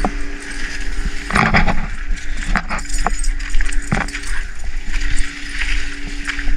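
Footsteps crunching and snapping through dry leaf litter, twigs and brush, with irregular knocks and rustles.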